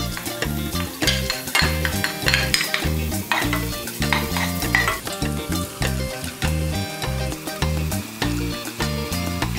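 Sliced shallots and chilies sizzling in hot oil in a pot while a wooden spatula stirs and scrapes through them. Background music with a steady, repeating bass line runs underneath and is the loudest part in the low range.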